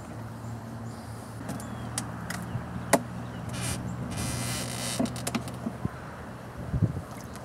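Knocks, clicks and scraping as the hinged wooden lid of a beehive is handled and opened, with a sharp knock about three seconds in and a short scrape just after, over a steady low hum.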